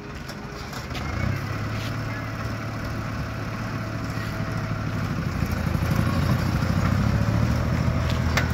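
Motorcycle engine running at low speed, a steady low hum that grows louder over the first several seconds as the bike comes up close, then holds.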